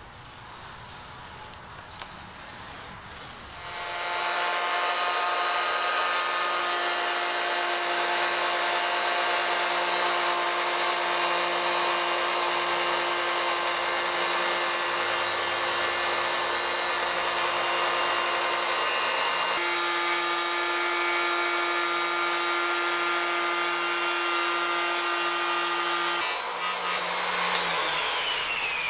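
Porter-Cable router with a bearing-guided flush-trim bit running steadily as it trims the overhanging hardboard edge of the table top. It starts about three and a half seconds in, its whine shifts slightly partway through, and near the end it is switched off and winds down with a falling whine.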